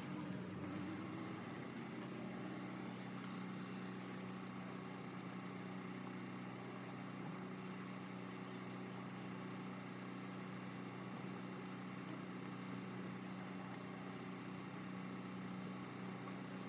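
A steady, unchanging mechanical hum.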